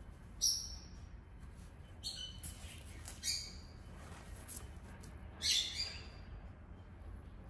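Short high-pitched animal chirps in four brief bursts, the loudest about half a second in and about five and a half seconds in, over a faint steady low hum.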